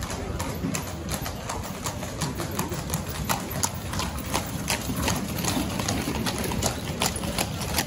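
Horses' iron-shod hooves clip-clopping at a trot on cobblestones as a line of horse-drawn carriages passes close by. The hoof strikes come in a quick, uneven clatter throughout, over a low rumble.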